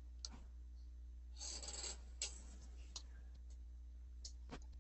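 Faint scattered clicks and a short rustle about a second and a half in, over a low steady hum.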